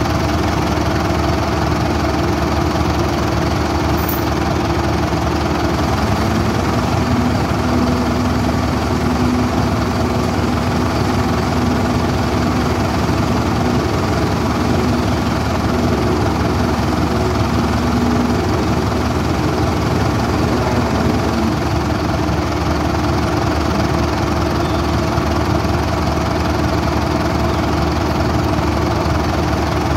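Crawler dozer's diesel engine idling steadily, an even drone that holds the same speed throughout.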